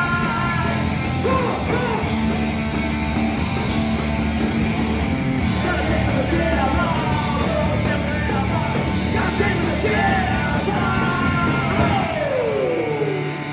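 Rock band playing with a shouted, yelling lead vocal. Near the end a long falling glide, and the music drops away.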